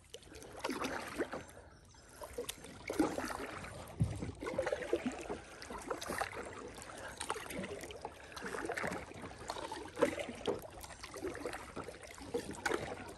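Kayak paddle dipping and pulling through pond water in strokes about every one to two seconds, with splashing and trickling water between them.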